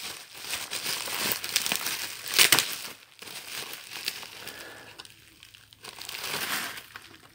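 Bubble wrap crinkling and crackling as hands dig through it inside a cardboard box, with a loud burst of crackle about two and a half seconds in, fading toward the end.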